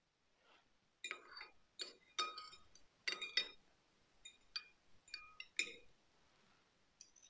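Metal serving spoon and fork clinking against a porcelain bowl and stemmed cocktail glasses while asparagus pieces are portioned: a quick series of sharp, ringing clinks, some in close pairs, with a few more near the end.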